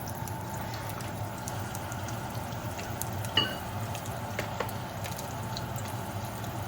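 Garlic and sliced ginger frying gently in oil in a small pot, a steady low sizzle, with a few light clicks of a utensil, the sharpest about three and a half seconds in.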